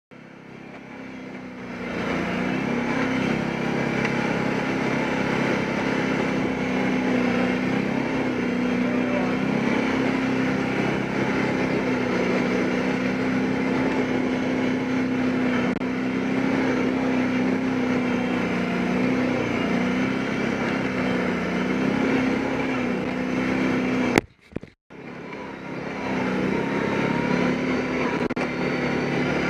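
Quad (ATV) engine running as it drives along a snowy trail, its pitch mostly steady with small rises and dips as the throttle changes. The sound cuts out briefly about four-fifths of the way through, then the engine is heard again.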